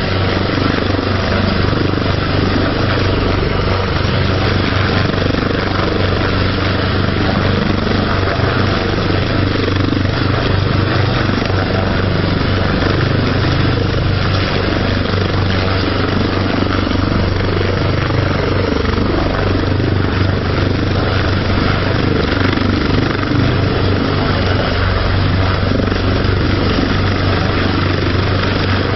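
Coastguard search-and-rescue helicopter hovering low, its rotor and engine noise loud and steady with a constant low hum underneath.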